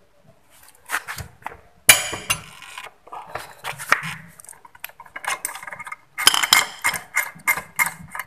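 Metal clicks and clanks of a socket ratchet and pulley holder tool working the nut off a Honda Vario 125's front CVT drive pulley, with one sharp clank about two seconds in and a run of quick clicks near the end.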